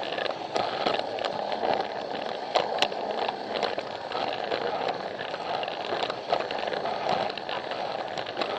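Plarail toy train's small battery-powered motor and gearbox running with a steady whir, with irregular sharp clicks from the wheels on the plastic track.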